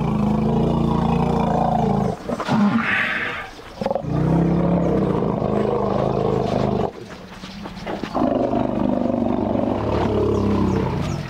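African elephants giving low, rumbling greeting calls to welcome returning young elephants: three long calls of two to three seconds each, with a short higher call about three seconds in.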